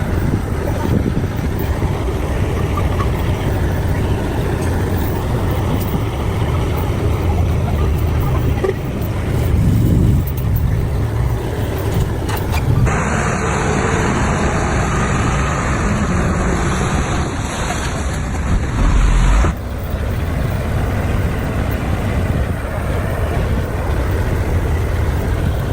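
Heavy diesel machinery, a bulldozer and trucks, running with a steady low rumble. About halfway through the sound changes abruptly to a brighter, noisier engine sound for several seconds, then the low rumble returns.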